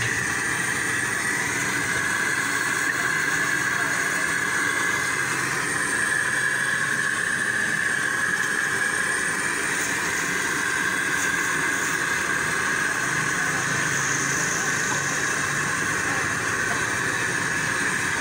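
A steady engine drone with a hiss over it, unbroken and even in level throughout.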